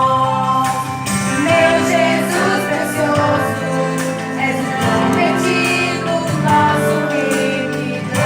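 Music with held chords, with some singing.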